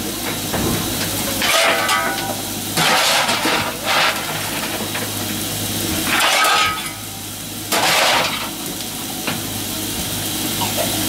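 Fireman firing a J Class steam locomotive: the steel shovel scrapes up coal and pitches it into the open firebox several times, a scraping rush at each stroke. Under it runs a steady hiss of steam in the cab, with a low hum.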